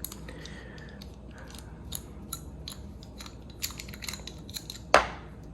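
A screw being worked out of an Abus 83/45 padlock to gut it: light metal clicks and scraping, with one sharper, louder click about five seconds in.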